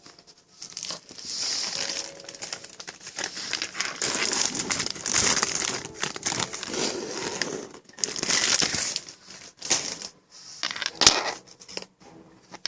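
Crinkling and crumpling of material handled by hand, in irregular stretches, with one sharp crack about eleven seconds in that is the loudest sound.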